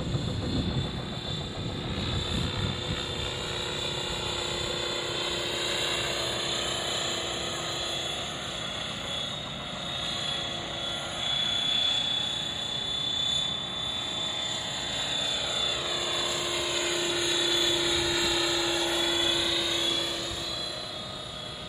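Radio-controlled MD500 scale helicopter in flight: a steady whine of motor and rotors with a high tone above it. In the second half it gets louder and the pitch wavers and sweeps as the helicopter passes low and close.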